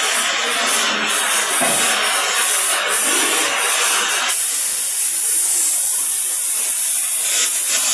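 Oxy-fuel cutting torch flame hissing steadily on steel plate. About four seconds in, the hiss changes in tone and loses some of its middle range.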